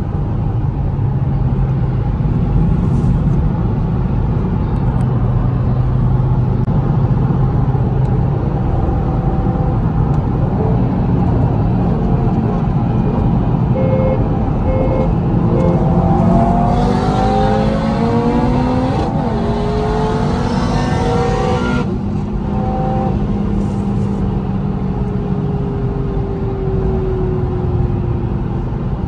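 Car engine and road noise while cruising, then about sixteen seconds in the engine pulls hard at full throttle, rising in pitch with one upshift partway, as in a roll race. After a few seconds it lifts off and the pitch falls slowly.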